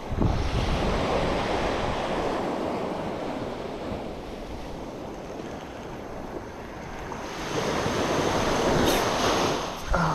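Small waves breaking and washing up the sand at the water's edge, swelling twice, once at the start and again about eight seconds in, with wind buffeting the microphone.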